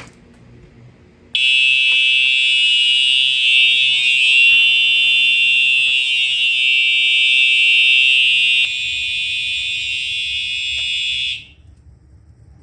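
Home fire alarm system sounding again on a subsequent alarm (re-alarm) after being silenced: a loud, steady, high-pitched alarm tone starts about a second in. It drops in level partway through, then cuts off about ten seconds after it began.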